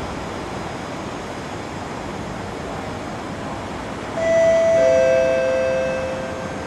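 Steady hum of a stopped metro train at an underground platform. About four seconds in, a two-note descending chime sounds, its notes held and fading: the station public-address chime that comes before an announcement.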